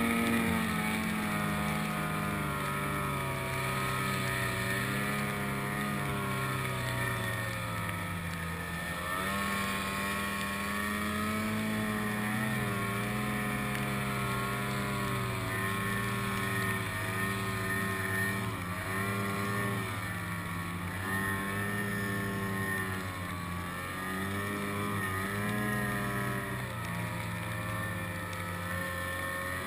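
Snowmobile engine running under throttle through deep powder. Its pitch rises and falls as the throttle is worked, with several quick drops and pick-ups in the second half.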